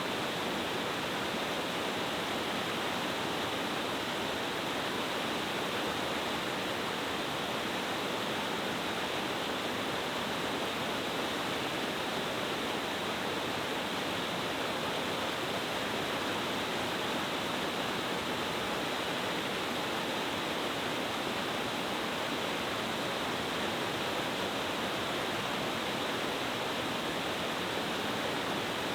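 Mountain cascade waterfall falling in several steps over rocks into a stream: a steady, even rush of water.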